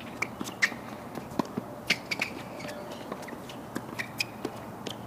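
Tennis shoes tapping and scuffing on a hard court, with a few short squeaks. The taps are irregular and uneven in loudness, the sharpest about half a second in and near two seconds.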